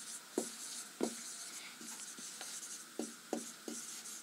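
Marker pen writing on a whiteboard: soft scratchy hiss of the strokes, with several light taps as the tip touches down on the board.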